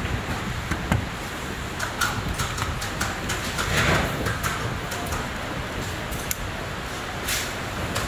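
Light clicks and knocks of a plastic ATM cassette feeder module with steel roller shafts being handled and turned on a bench, over steady background noise, with a louder scrape about four seconds in.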